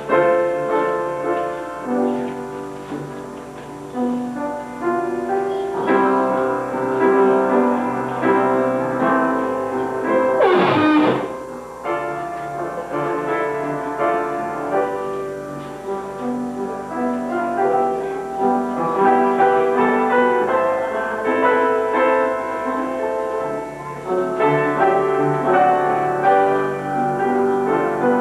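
Piano playing slow instrumental music with long held notes and changing chords. A brief falling-then-rising sweep of noise cuts across the music about eleven seconds in.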